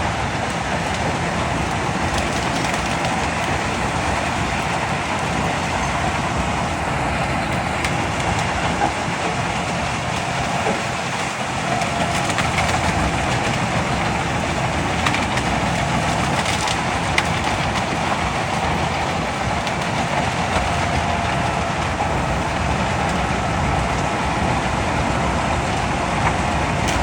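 Large Albach wood chipper, driven by an MAN engine of about 800 horsepower, running under load as it chews through hedge wood. Its heavy engine noise is steady, with continuous crunching and splintering of branches and a few sharp cracks.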